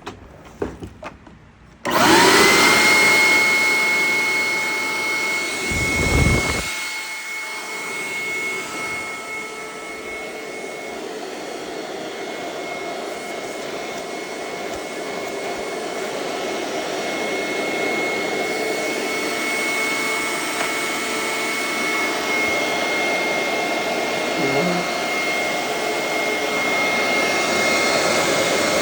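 Hoover SteamVac carpet cleaner switched on about two seconds in: its motor spins up with a quickly rising whine, then runs steadily with a high whine over a rushing motor noise. A brief low thump sounds a few seconds after start-up.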